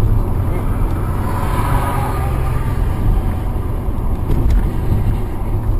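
Steady low rumble of a car's engine and road noise, heard from inside the cabin.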